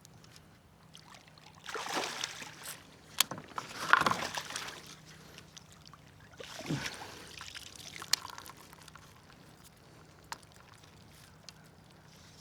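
Water splashing and sloshing in three short bursts, with a few sharp knocks and clicks, over a faint steady low hum.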